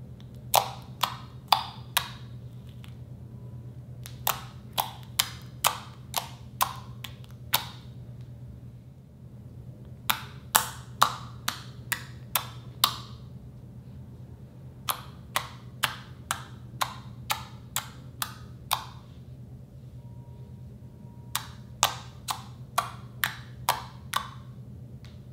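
Fingertips poking into thick, glossy slime, each poke giving a sharp pop as trapped air escapes. The pops come in runs of five to nine, about two a second, with short pauses between runs.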